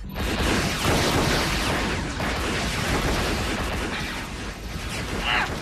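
Battle sound effects of dense gunfire and explosions, cutting in abruptly and going on without a break.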